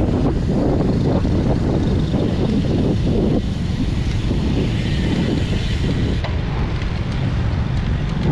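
Heavy wind noise buffeting the microphone, a loud, steady low rumble that eases slightly about three and a half seconds in.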